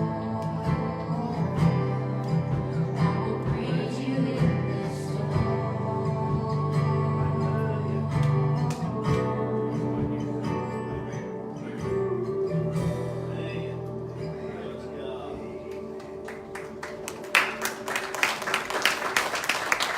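Live worship music with acoustic guitar and singing, ending on a held chord that fades out. A few seconds before the end, the congregation breaks into clapping.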